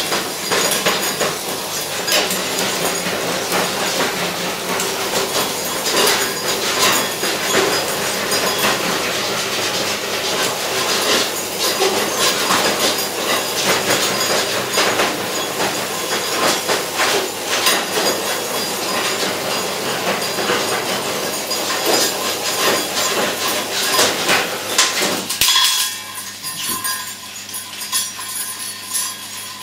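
A small homemade robot toy rattling and clattering fast over a hard floor and against metal pots, with dense clicking and clinking. About three-quarters of the way through the clatter drops away and gets quieter, leaving a faint steady hum with an occasional tick.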